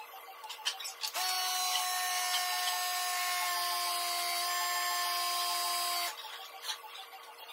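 A small machine runs at a steady whine with a hiss for about five seconds, starting about a second in and cutting off suddenly.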